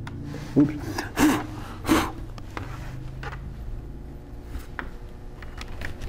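Scattered light clicks, taps and rubbing of a laptop being handled and its power cord being plugged in, over a low steady hum.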